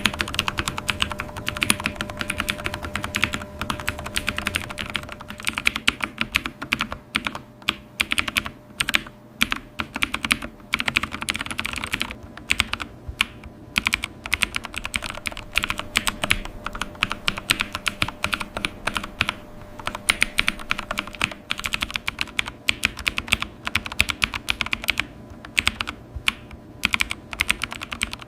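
Computer keyboard being typed on: a fast, uneven run of key clicks, with a few short pauses.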